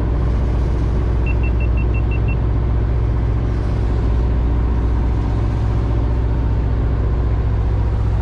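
Steady low hum of an engine running on board a fishing boat, with a quick run of about seven short high-pitched beeps about a second in.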